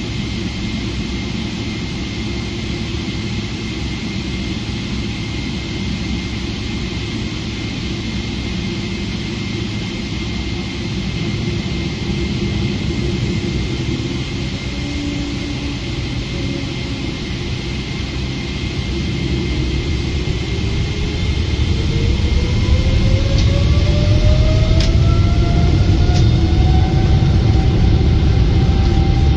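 Boeing 777-300ER's GE90-115B jet engines heard from inside the cabin: a steady low rumble with a constant high whine, then, about two-thirds of the way in, a rising whine as the engines spool up and the rumble grows louder, with thrust coming up for the takeoff.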